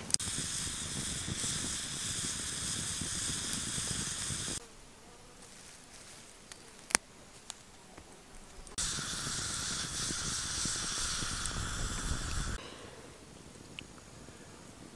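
Steady buzzing and chirring of insects in a summer meadow, in two stretches of a few seconds each that start and stop abruptly, with quieter outdoor ambience between them and a single sharp click about seven seconds in.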